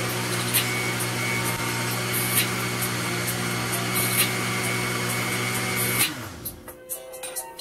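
Black+Decker countertop blender running steadily on a thick sweet potato smoothie, with a faint knock about every two seconds. About six seconds in, it is switched off and the motor winds down quickly.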